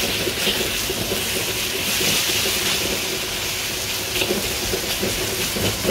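A steady hissing rush, with a few faint light clicks scattered through it.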